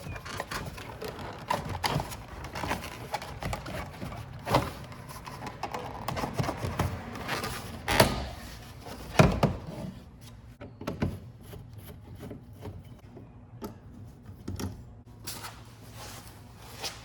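Irregular clicks, knocks and thunks of hands and tools working inside a car door, taking off the interior door panel to get at the power window motor. The loudest knocks come about 8 and 9 seconds in.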